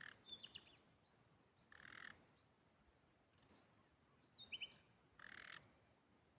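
Frog calls and bird chirps, faint. A short rasping frog call repeats about every two seconds, and quick bird chirps come near the start and again about four and a half seconds in.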